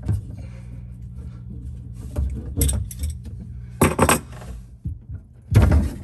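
Metal clinks and rattles as a faucet supply-line nut is undone from a shutoff valve and the wrench and fittings are handled, in several short clusters over a steady low hum.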